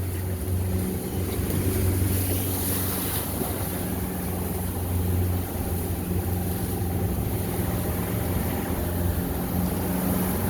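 Motorboat engine running steadily under way through rough water, a constant low hum with a rushing noise over it.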